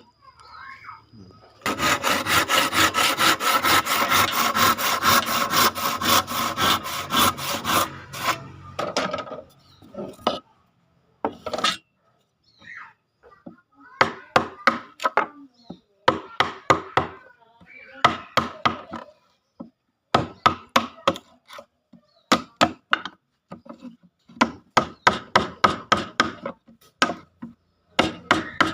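Hand tool working wood in quick back-and-forth strokes, likely a handsaw cutting. A steady run of strokes lasts about six seconds, then the strokes come in short bursts with pauses between them.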